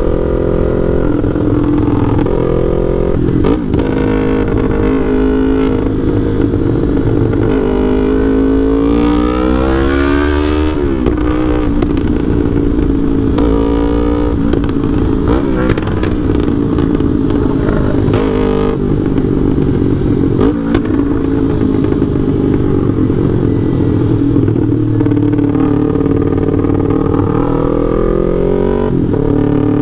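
Yamaha R3's parallel-twin engine through a full aftermarket exhaust, with a remapped ECU, running under way. The pitch keeps rising and falling with the throttle, with the steepest climb about ten seconds in. It is broken by several brief dips, typical of gear changes.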